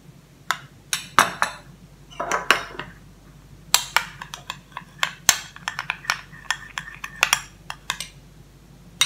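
Metal spoon clinking and scraping against a ceramic bowl while stirring thick sauce, an irregular run of sharp taps and short scrapes.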